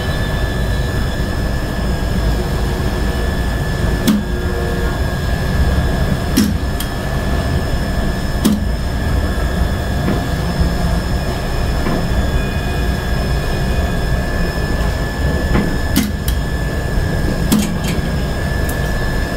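Sharp clicks from the elevator control cabinet's contactors and relays, about half a dozen at irregular intervals, as the test buttons on the panel are pressed. Under them runs a steady low drone with a thin high whine.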